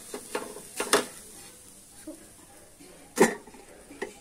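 A wooden spatula knocks and scrapes on a hot dosa tawa as a cooked dosa is lifted off it onto a steel plate, with a few sharp clatters, the loudest about three seconds in. A light sizzle comes from the pan underneath.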